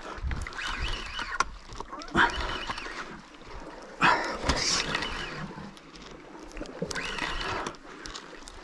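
Spinning reel being cranked in short bursts of winding, about four in all, recovering line against a hooked fish.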